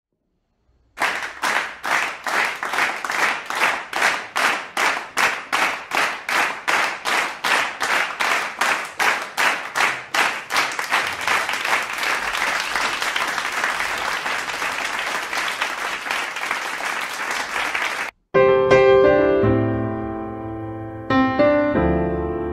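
A crowd clapping in unison, about three claps a second, that loosens into ordinary applause; about eighteen seconds in it cuts off and piano music begins, with chords struck and left ringing.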